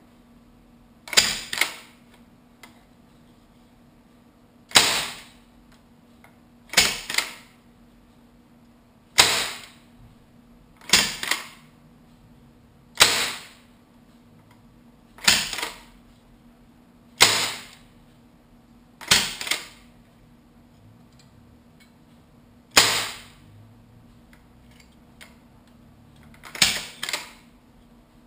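Green-gas-converted A&K SVD airsoft rifle discharging sharp bursts of gas, about a dozen, roughly every two seconds, three of them doubled.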